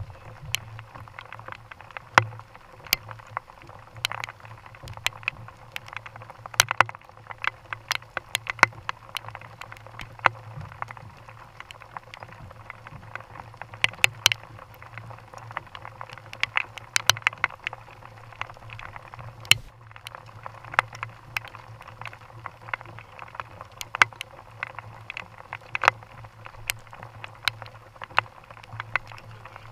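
Raindrops hitting the camera housing: irregular sharp taps, several a second, over a low steady hum.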